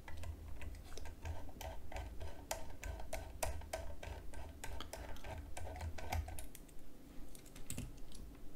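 A small Phillips screw being unscrewed with a precision screwdriver from the base of a Blue Yeti microphone: a quick run of light clicks and ticks, about three or four a second, that stops about six seconds in. A couple of sharp clicks follow near the end as the screw is set down in the parts tray.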